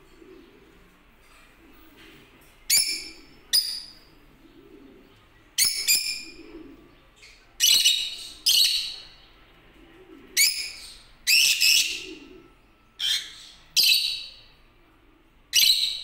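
Lutino peach-faced lovebirds giving about a dozen sharp, high-pitched calls, each short and starting suddenly. The calls come roughly a second apart, some in quick pairs, beginning a few seconds in.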